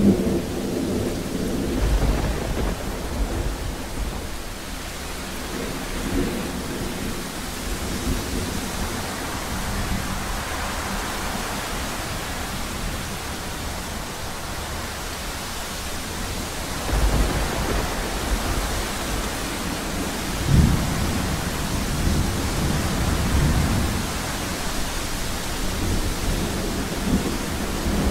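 Steady heavy rain with thunder rumbling over it. Low rolls swell a couple of seconds in and again past the middle, and the loudest clap comes about two-thirds of the way through.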